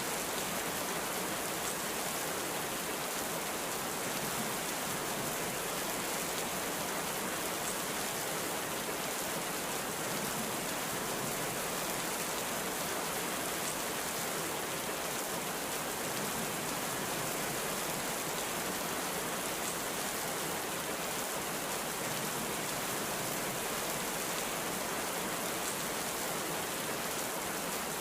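Heavy rain falling steadily, an even, unbroken hiss of rain on surfaces with no thunder.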